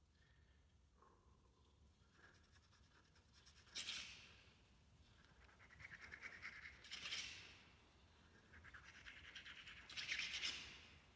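Knife cutting into a tomato with short scraping, rasping strokes. Three louder passes come about three seconds apart, and the last one, near the end, is the loudest.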